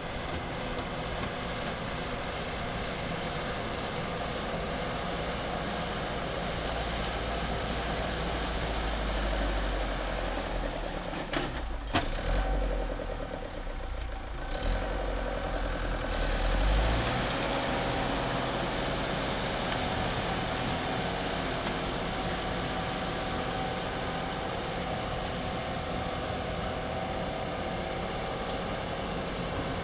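Diesel tractor engine running as it pulls a rotary tiller through a flooded rice paddy. A deeper rumble builds as the tractor comes close, about a quarter of the way in, with a couple of sharp knocks shortly before halfway, then it settles to a steady run as it moves away.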